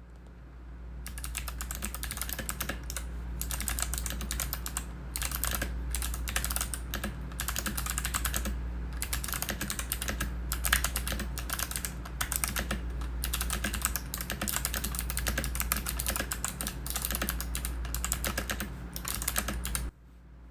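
Fast, continuous typing on a mechanical keyboard: a dense stream of key clicks and clacks that stops suddenly near the end, over a steady low hum.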